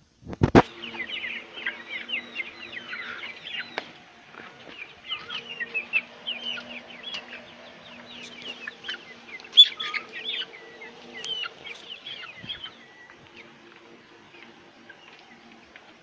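A flock of young golden Misri chickens peeping and clucking in a busy chorus of short, high calls that thin out near the end, over a steady low hum. A single sharp knock comes about half a second in.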